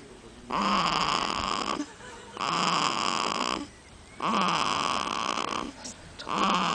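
Newborn baby snoring: a rasping noise on each breath, coming about every two seconds, three full snores with a fourth starting near the end.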